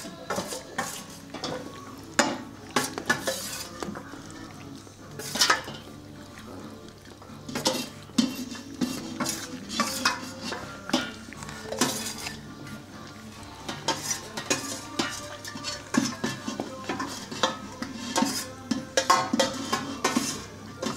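Stainless steel dog bowls clanking and scraping on a tiled floor as Labrador retriever puppies eat from them and push them around, with many irregular metallic clinks.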